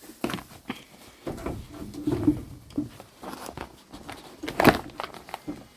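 Irregular rustling, scuffing and short knocks of close handling and jostling, with one sharp knock near the end.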